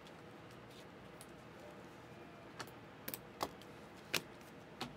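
Faint clicks of trading cards being flicked off a stack in the hand, about five light snaps in the second half.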